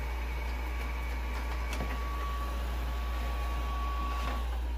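DreameBot Z10 Pro robot vacuum running with a steady high whine as it drives onto its dock, with a couple of faint clicks. Near the end the whine starts to drop in pitch as the motor winds down.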